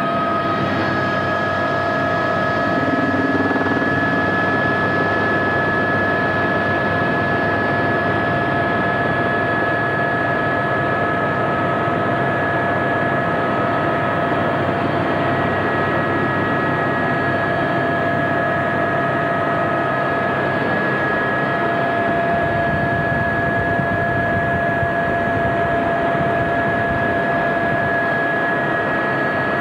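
Cabin noise inside an Aérospatiale AS350B Squirrel helicopter in flight: the Turbomeca Arriel turboshaft and rotor give a steady, loud rush with several constant high whining tones on top.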